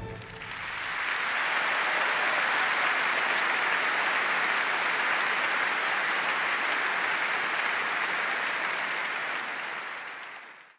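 A large arena audience applauding. The clapping swells up in the first second, holds steady, and fades away near the end.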